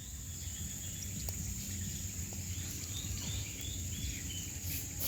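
Outdoor ambience: a steady high-pitched insect drone over a low background rumble, with a few faint chirps in the middle.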